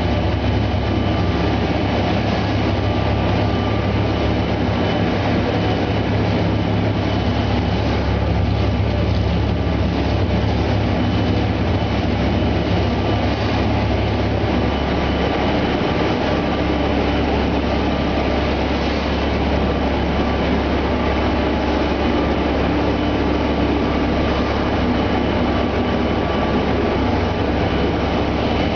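Egg tray production line machinery running: a steady mechanical rumble with a constant low hum and a few faint steady tones.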